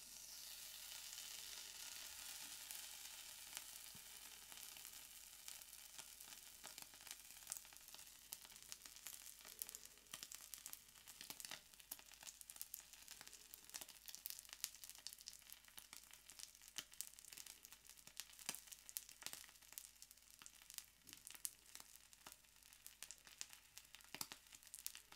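A fatty piece of A5 Japanese wagyu sizzling on a hot griddle plate as its fat renders out. It begins with a steady hiss that fades over the first few seconds, then settles into soft, irregular spitting and crackling.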